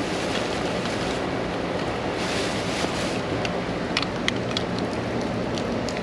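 Steady hiss of heavy tropical-storm rain, with wind noise on the microphone, and a few small sharp clicks and taps through the second half, clustered about four seconds in.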